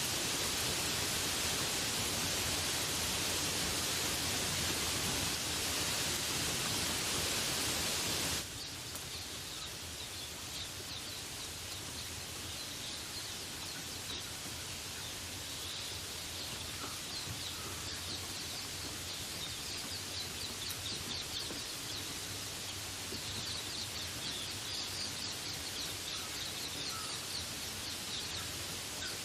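Steady rain hiss that cuts off abruptly about eight seconds in, giving way to quieter forest ambience with birds chirping repeatedly.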